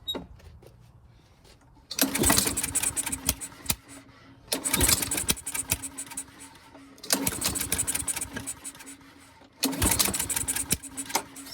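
Honda push mower engine pull-started four times, each pull cranking it over for about a second and a half and popping back through the carburetor without catching. The speaker puts the popping down to a dented valve cover pressing on the rocker arm and holding the intake valve open.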